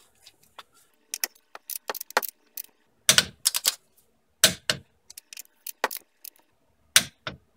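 Irregular metallic clicks and clinks of a long torque wrench, its socket and ratchet head, being fitted onto a brake caliper bracket bolt and worked for tightening to 52 lb-ft.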